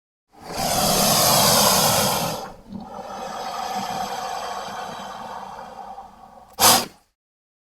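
Imagined Dimetrodon creature sound effect: a loud breathy call lasting about two seconds, followed by a quieter drawn-out rasping call for several seconds, and a short sharp burst near the end.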